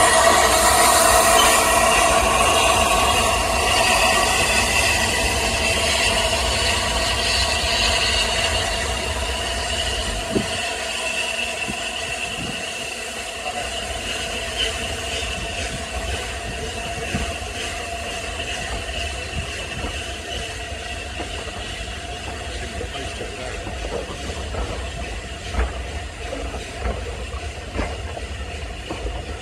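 The Flying Scotsman, an LNER A3 Pacific steam locomotive, moving off slowly with a loud hiss of steam. Its train of carriages then rolls past with wheels clicking over the rail joints and a thin, steady wheel squeal, the sound growing gradually quieter.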